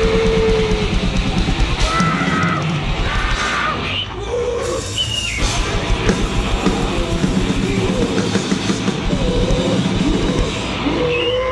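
Grindnoise/noisecore recording: a dense wall of harsh, distorted noise over fast, dense drumming, with short high squeals cutting through. The intensity drops briefly about four seconds in, then the onslaught resumes.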